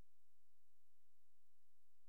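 Faint steady electrical hum and hiss with no distinct sound events: the recording's noise floor.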